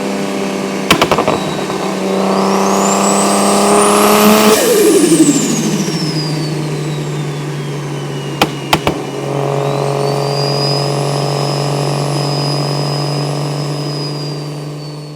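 Single-turbo BMW 335i's N54 straight-six with a straight-piped exhaust pulling under load, its turbo whistle climbing steeply to a very high pitch. About four and a half seconds in, the revs and the whistle drop away together. The engine then settles to a lower steady note with a steady high turbo whistle over it; there are a few sharp clicks about a second in and again past eight seconds.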